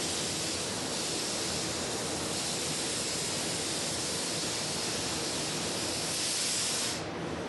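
Compressed-air blow gun hissing steadily as it blows dust off the panel before spraying, cutting off suddenly about seven seconds in.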